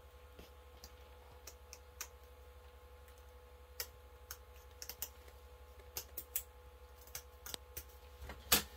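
Scissors snipping stainless steel window screen, an irregular scatter of sharp clicks, the loudest near the end, over a faint steady hum.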